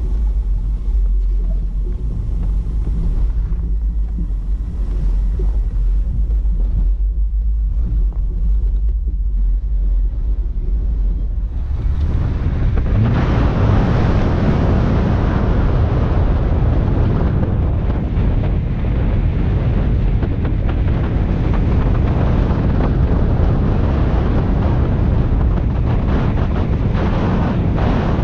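Low rumble of a Subaru Forester driving on a snow-covered dirt road, picked up from outside the car. About twelve seconds in, loud wind noise on the microphone sets in and stays for the rest.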